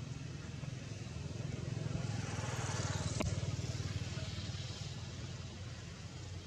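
A motor vehicle engine passing by, its rumble growing louder to a peak about halfway through and then fading, with a single sharp click just after the peak.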